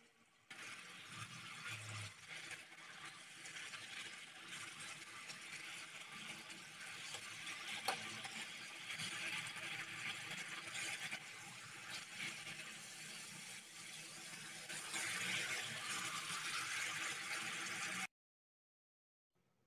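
Thick tomato pizza sauce simmering and crackling in a non-stick pan while it is stirred with a silicone spatula, with one sharp click midway; it cuts off suddenly near the end.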